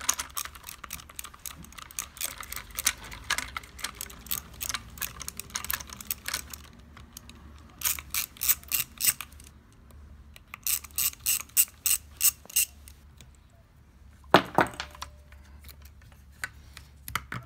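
Hand ratchet clicking in fast runs as the screws holding the septic air pump's diaphragm chamber block are backed out, three runs in all. A single knock follows about 14 seconds in.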